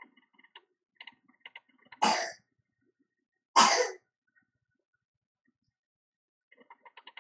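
A man clearing his throat twice, about a second and a half apart, each a short sharp burst. Faint light clicks are scattered around them.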